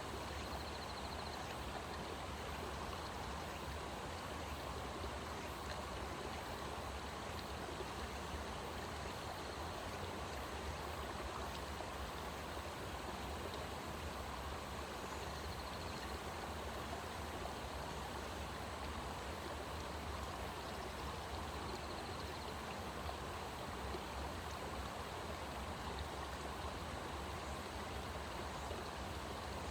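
Steady rush of flowing stream water with an even, unbroken hiss. A few faint, short, high chirps come through now and then.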